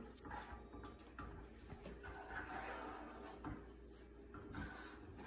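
Faint scraping of a wooden spoon stirring thickening playdough in a saucepan, with a few soft knocks of the spoon against the pan.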